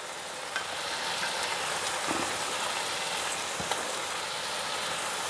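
Onion-tomato masala gravy sizzling steadily in a frying pan as chicken kababs are laid into it, with a few faint taps.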